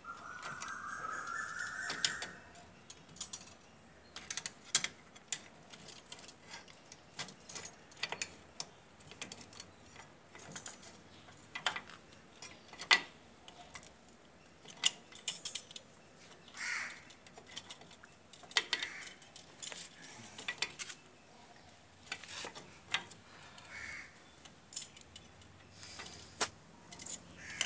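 Irregular metal clicks and clinks as the steel brake shoes and return springs of a Bajaj three-wheeler's rear drum brake are worked into place by hand on the backing plate. A short rising squeal sounds in the first two seconds.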